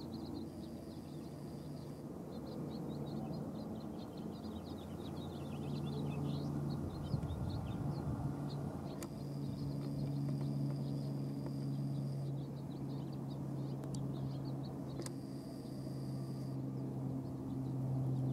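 Diesel engines of a five-locomotive freight train running under load, a steady low drone that grows somewhat louder about six seconds in, with small birds chirping rapidly throughout.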